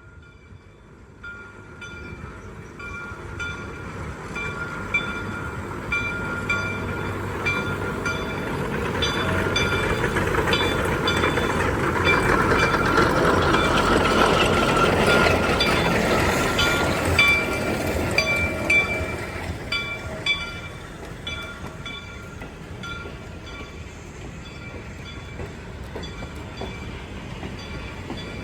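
A train rolling past on the Cass line, growing louder to its loudest about halfway through and then fading, with the clatter of wheels on rail and steady high metallic ringing over it.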